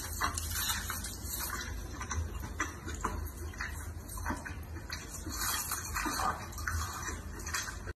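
Wet chewing and smacking from a mukbang eating video playing on a TV, with many small irregular clicks over a steady low hum.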